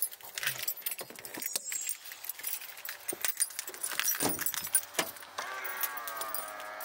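Keys jangling among clicks, knocks and rustling as someone climbs out of a car and handles its door. About five seconds in, a steady pitched hum starts and holds.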